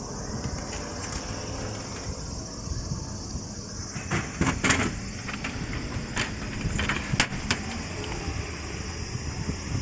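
Vending machine being worked: coins going into the slot, then a cluster of sharp clatters about four seconds in as the metal can drops into the delivery tray, and a few single clicks as it is taken out, over a steady background hum.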